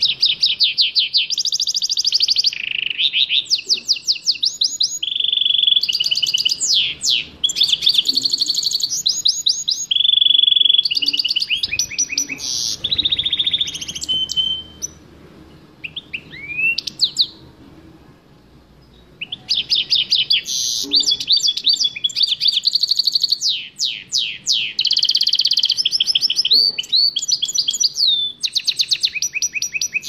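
Caged red canary singing a long, varied song of rapid trills and quickly repeated whistled notes, breaking off for a few seconds about halfway through before starting again.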